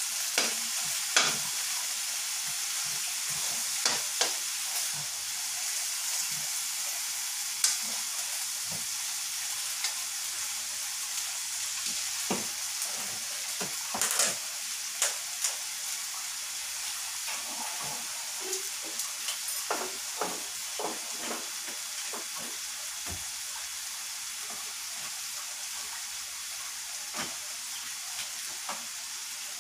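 Chicken pieces frying in oil in a stainless steel wok over a gas burner: a steady sizzle with scattered pops and crackles.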